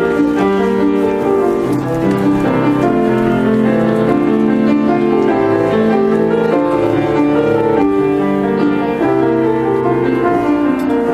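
Keyboard instrument playing slow music in sustained chords that change every second or so.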